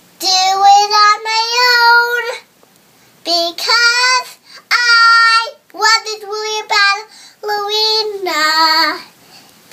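A young girl singing on her own in a high voice, in several short phrases with some held notes and brief pauses between them.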